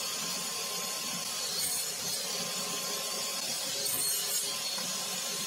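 Table saw running steadily while its blade cuts small wooden blocks, with a sharper hiss of the cut twice.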